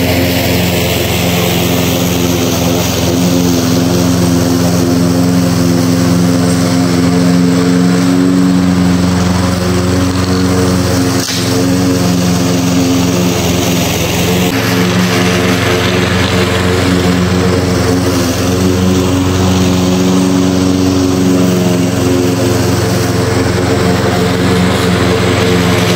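Small lawn mower engine running steadily at constant speed.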